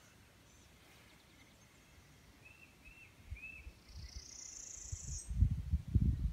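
Birds calling: a few short chirps, then a buzzy rising call, while wind buffets the microphone in low gusts that grow loudest near the end.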